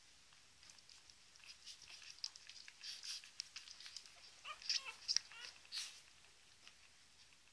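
Newborn puppies suckling at their mother: faint wet clicking and smacking from the nursing, with a few short high squeaks a little past the middle.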